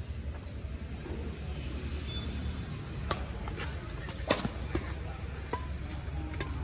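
Badminton rally: rackets hitting a shuttlecock, a string of sharp pops starting about three seconds in, roughly one every half second, the loudest just past four seconds. A steady low rumble runs underneath.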